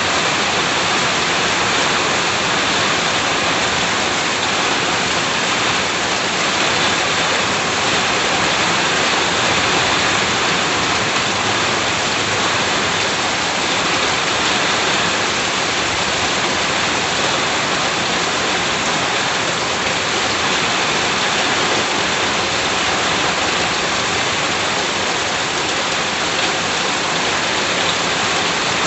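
Steady rain falling, an even, unbroken hiss of raindrops.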